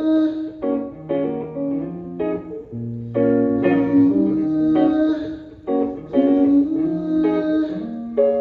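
Guitar playing chords over low bass notes: an instrumental passage of a song, with no singing.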